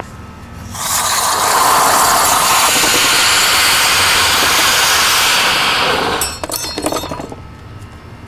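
A lit firework burning with a loud, steady hiss for about five seconds while spraying sparks, ending in a short run of sharp crackles.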